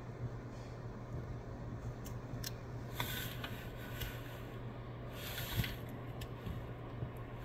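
Pilatus PC-12 single-engine turboprop passing high overhead, a faint steady drone. Two brief rustling noises come about three and five seconds in.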